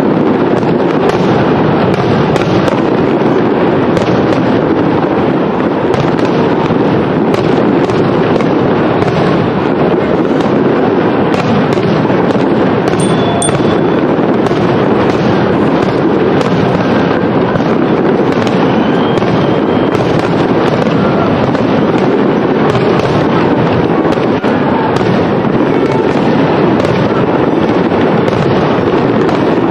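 Aerial firework shells bursting in a dense, continuous barrage: many overlapping bangs with no pause between them.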